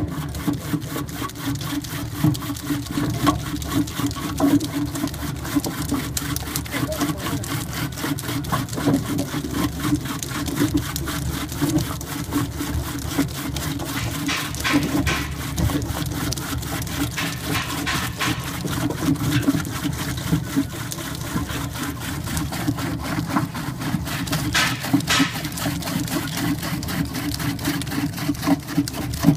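Ginger slicing machine running, a steady motor hum under a rapid, even chatter of its rotary blades cutting ginger roots into chips. A few sharper clatters come around the middle and near the end.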